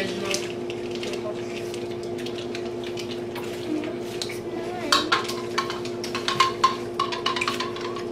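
Plastic forks and a spoon tapping and scraping against plastic plates and a drink glass while food is eaten and a drink is stirred. The clinks come in a quick run from about five seconds in, over a steady low hum.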